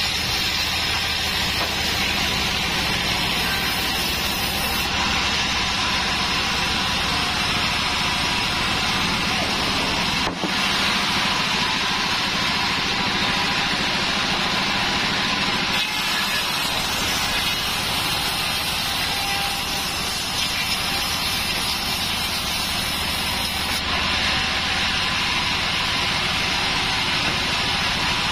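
Large vertical band saw mill running steadily while its blade cuts lengthwise through a big log. The sound changes abruptly about ten seconds in and again around sixteen seconds.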